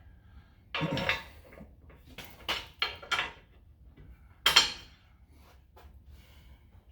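A handful of short metallic clanks and clinks as steel bracket hardware, bolts, nuts and hand tools are handled during the winch mount fitting. The loudest comes about four and a half seconds in.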